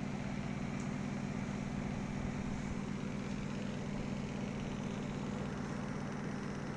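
A machine running steadily: a constant low hum over an even hiss, with no change in pitch or level.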